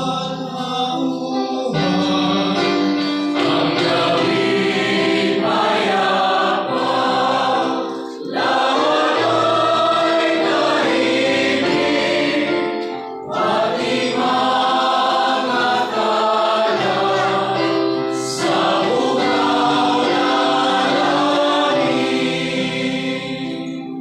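A group of carolers singing a Christmas carol together over a steady instrumental accompaniment, with short breaks between phrases about 8 and 13 seconds in.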